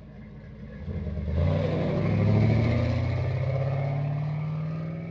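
A car engine idling, then revving up about a second and a half in, its pitch climbing steadily as it accelerates.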